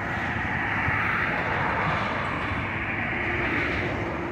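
Heavy demolition machinery running steadily, a diesel engine working without any distinct crashes or impacts.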